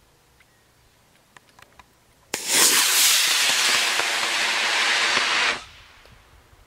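Estes Super Neon XL model rocket's E-class solid-fuel motor igniting about two seconds in with a sudden loud hiss. The hiss burns steadily for about three seconds as the rocket climbs, then dies away as the motor burns out.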